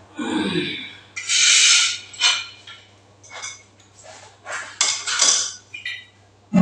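Irregular bursts of rustling and clinking as the parts of a handheld bidet spray set are unpacked and handled.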